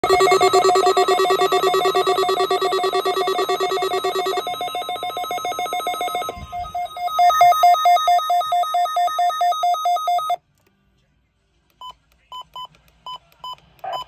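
Several NOAA weather alert radios beeping their pulsing electronic alarms together for the Required Weekly Test. The alarms stop one by one, and the last, beeping about four times a second, cuts off about ten seconds in. After a short pause, a Midland weather radio gives about six short button beeps as its buttons are pressed.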